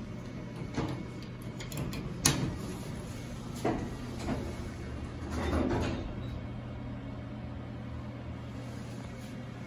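Otis Series 1 hydraulic elevator: the car doors slide shut with a sharp click about two seconds in, and the hydraulic pump unit hums steadily as the car rises.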